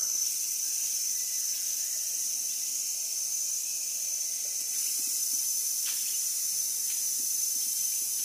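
Steady, high-pitched drone of a forest insect chorus, holding one even pitch throughout.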